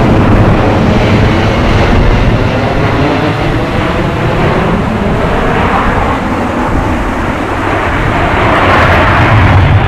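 Loud jet noise from the Boeing C-17 Globemaster III's four Pratt & Whitney F117 turbofans as the airlifter passes low and climbs away in a banking turn. The roar dips a little past the middle and swells again near the end.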